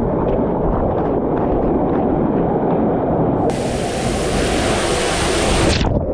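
Rushing water on a water-park slide, heard close on a rider's camera microphone, with wind noise against the microphone; from about three and a half seconds in, a brighter hiss of spray for about two seconds, cutting off just before the end.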